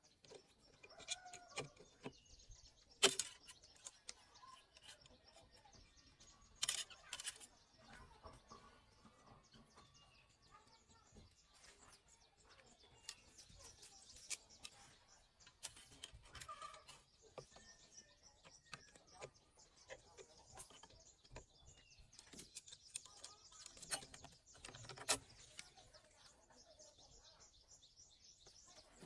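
Quiet outdoor sound of birds chirping, broken by scattered sharp knocks and taps, the loudest about 3 seconds in, twice around 7 seconds, and near 25 seconds.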